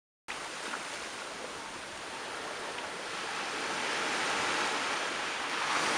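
Small waves washing up onto a sandy beach: a steady rush of surf that starts abruptly just after the beginning and swells a little about four seconds in.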